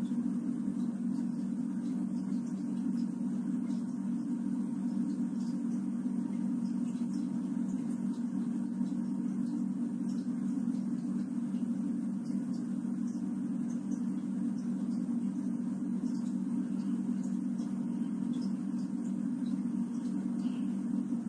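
A steady, unchanging low hum, with no rise and fall of breathing or snoring in it.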